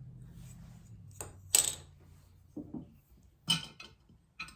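Small trinkets handled and set down on a tabletop: a few light clicks and clinks with a brief rustle, spaced out with short gaps.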